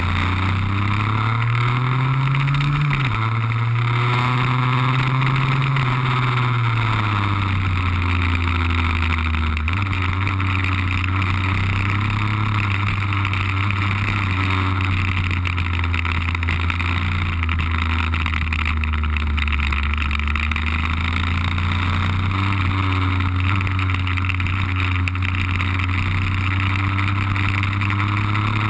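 Two-stroke Lambretta RB20 scooter engine under way, its pitch rising and falling with the throttle and dropping sharply about three seconds in, then holding fairly steady and climbing slowly near the end. A steady rushing noise runs under it.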